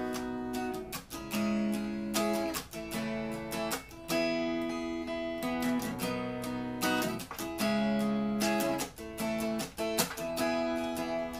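Acoustic guitar, capoed, strummed in a steady pattern of chords as a song's instrumental intro.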